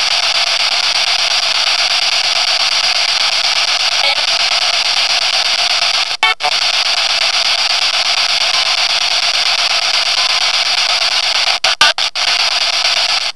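Steady loud hiss of electronic static, like radio or white noise, broken by brief dropouts about six seconds in and again near the end.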